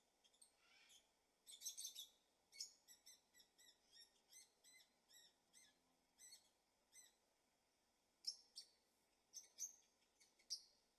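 Faint birdsong: short, high chirps repeated two or three times a second, with louder bursts of calls near the start and again late on.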